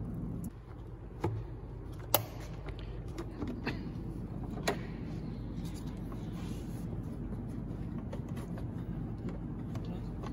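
Several sharp clicks and snaps as the clips holding the lid of a BMW Z3's plastic air filter housing are undone by hand, the loudest about two seconds in, over a steady low background hum.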